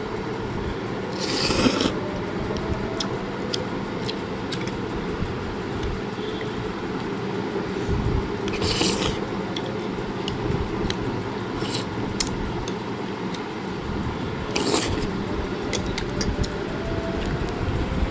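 Fork and spoon scraping and clicking against a plate of noodles in three short scrapes and many light taps, over a steady low rumble.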